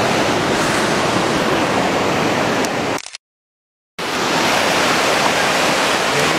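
Steady roar of fast-flowing river rapids. It cuts out completely for about a second midway, then resumes.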